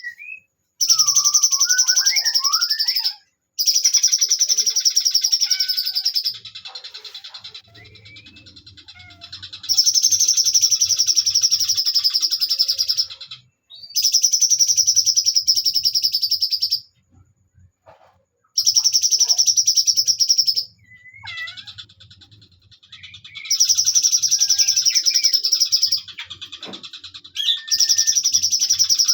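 Cucak cungkok songbird singing long, loud, rapid high-pitched trills of two to four seconds each, repeated about seven times with short pauses, with lower scattered chirps in between. This is the long 'nembak' song that bird keepers breed and train for.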